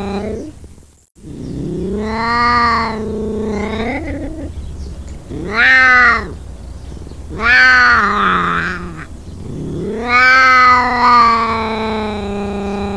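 Ocelot yowling: a series of drawn-out, meow-like calls, each rising and then falling in pitch. The first and last calls are long, about three seconds each; the two in the middle are shorter and louder.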